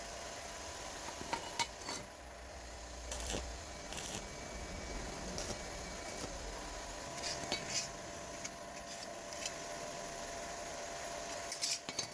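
Light metallic clinks and knocks from steel parts being handled, scattered irregularly over a steady faint hum. A small cluster of sharper clicks comes near the end.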